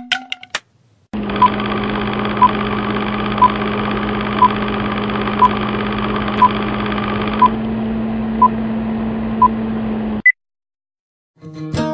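Old-film countdown-leader sound effect: a film projector running with a steady hum and rattle, and a short beep once a second as the numbers count down. Near the end a single higher blip sounds and the whole thing cuts off suddenly.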